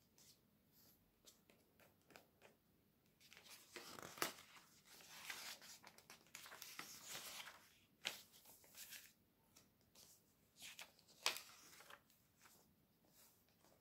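Glossy catalogue pages being handled and turned: soft rustling and sliding of the paper under the hand, with three crisp snaps as pages flip over.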